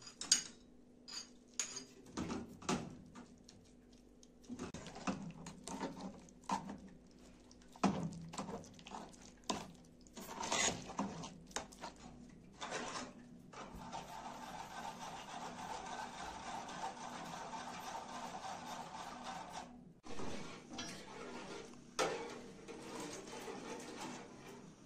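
Metal spoons clinking and scraping against steel pots and bowls as soup is scooped and stirred, in a string of separate clinks and knocks. Past the middle a steady hiss runs for several seconds, then stops.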